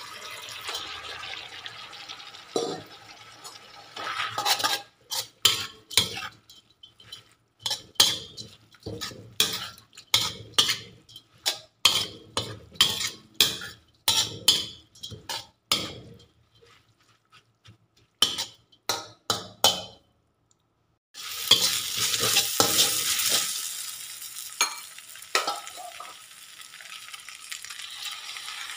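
Spatula stirring and tossing glass noodles and ground meat in a hot wok, sharp scraping strokes about two a second over a sizzle. After a brief break the frying sizzle comes back loud and steady.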